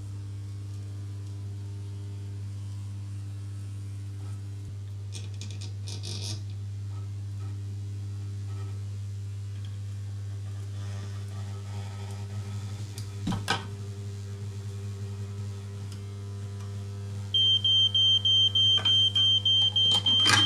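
Spot welder transformer humming steadily while it drives a dead short through its secondary cables, with a single crackle about two-thirds of the way in. Near the end a smoke alarm starts beeping rapidly, set off by the smoking, overheated cables.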